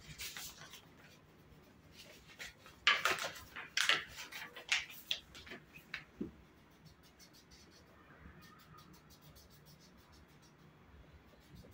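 A handful of short scratching strokes of a pencil on drawing paper, bunched in the first half, the loudest about three and four seconds in; after that only faint room tone.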